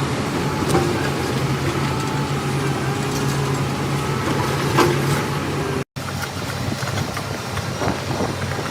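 A heavy vehicle's engine running steadily, with a few sharp clicks and knocks over it. The sound cuts out for an instant about six seconds in, then a rougher engine sound carries on.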